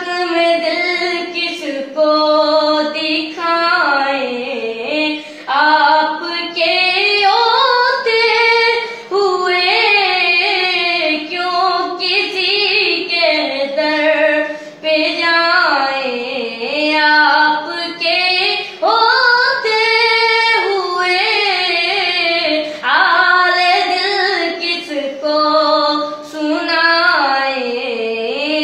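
A boy singing a naat (an Urdu devotional song in praise of the Prophet) solo and unaccompanied, in long held phrases whose pitch glides and bends, with short breaths between them.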